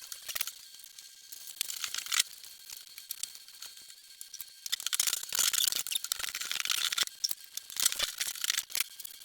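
Household items being handled and moved about: scattered light knocks and rattles with rustling, busiest from about five to seven seconds in.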